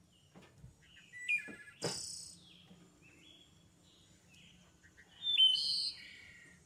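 Small birds chirping and whistling in short, stepped calls, loudest for about a second near the end. A brief knock comes about two seconds in.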